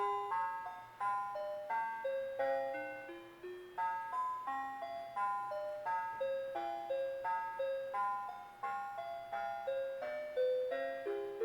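A Christmas tune played as a chiming melody by the built-in music of a 1996 Christmas Fantasy Wonderland Skaters Pond. Each note starts sharply and fades quickly, at a steady pace of a few notes a second.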